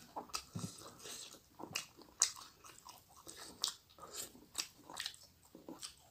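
A person chewing a mouthful of rice and fish curry eaten by hand, with many irregular sharp mouth smacks and clicks.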